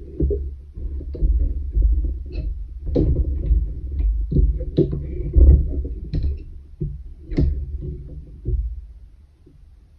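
A long metal weaving needle worked through the yarn strands of a wooden pin loom: uneven rustling and handling noise with scattered light clicks and taps. It dies down near the end.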